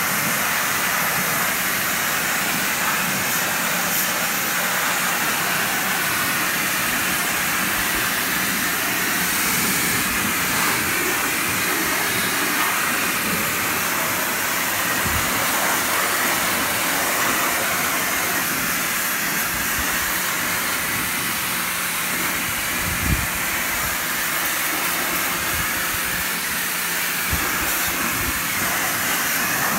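Pressure washer jet spraying water onto a tractor's engine and fittings: a steady hiss of spray striking metal and hoses, with one brief knock about two-thirds of the way through.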